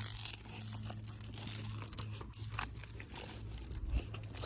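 Metal chain dog leash jingling and clinking in quick, irregular rattles as a puppy bites and tugs at it, loudest just after the start.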